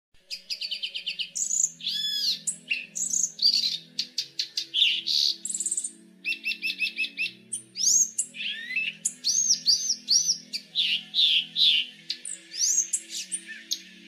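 A male euphonia singing a long, varied song of quick chattering notes, rising and falling whistles and short trills, with hardly a pause.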